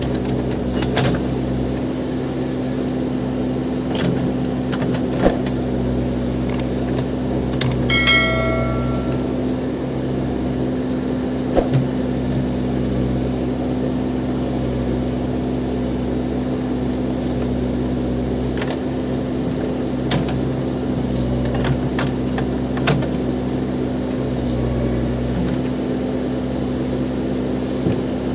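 Case 580 Super M backhoe loader's diesel engine running steadily, with scattered knocks and one ringing metallic clang about eight seconds in.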